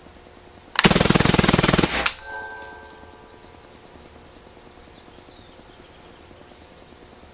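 Hatsan Blitz .22 full-auto PCP air rifle, fitted with a suppressor, firing one rapid full-auto burst of about twenty shots in just over a second that empties the magazine. A brief ringing follows the burst.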